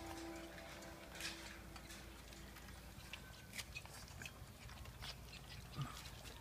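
Faint lapping and chewing of 20-day-old puppies eating mushy food from a steel bowl for the first time: scattered small wet clicks and smacks.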